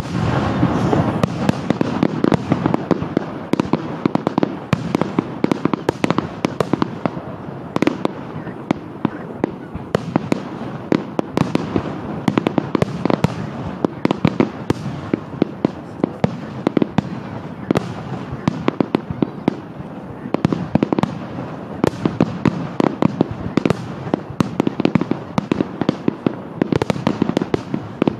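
Fireworks display: aerial shells bursting in quick succession, a dense run of bangs and crackles over a continuous rumble.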